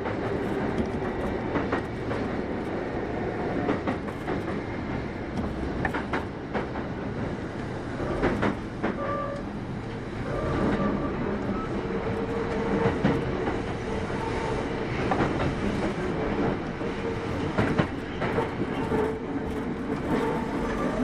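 Kintetsu 8810-series electric train running, heard from inside the passenger car: a steady rumble with wheels clicking over rail joints. A steady whining tone comes in about halfway through.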